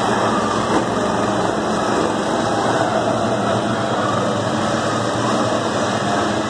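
Electric inflatable-ring bumper cars running on a rink, their motors giving a steady mechanical drone that stays even throughout.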